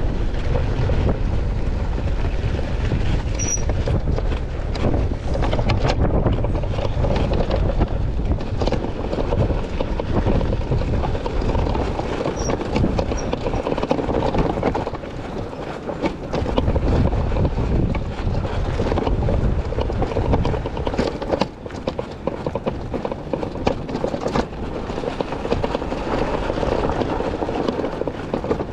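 ONYX RCR electric bike riding over a rocky dirt trail: a steady rumble of wind and tyres, with frequent knocks and rattles from the bike, easing briefly about halfway through.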